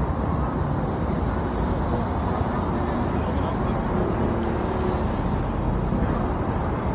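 Steady road traffic noise from passing vehicles.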